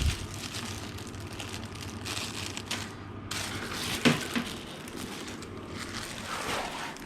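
Hands handling the air cooler and its packing: irregular rustling and crinkling with a few knocks, the sharpest about four seconds in.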